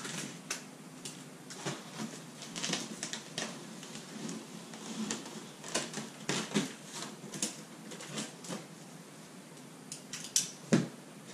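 A cardboard box being opened: irregular scrapes, rustles and clicks as packing tape is cut with a box cutter and the cardboard flaps and inserts are handled, with a couple of louder knocks near the end.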